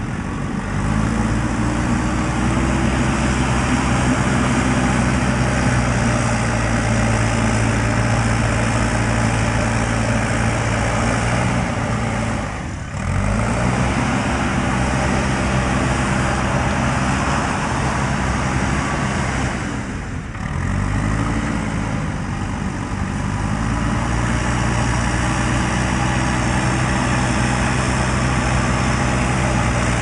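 JCB backhoe loader's diesel engine running at high revs while the machine works, its pitch climbing in the first second. Twice, about a third and two-thirds of the way through, the revs drop briefly and climb back.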